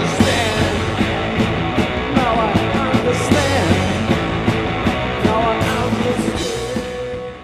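Background rock song with drums and a singing voice, fading out at the very end.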